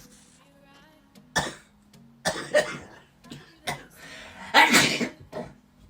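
A person coughing several times in short bursts, the loudest near the end, reacting to a nasal swab pushed up the nostril.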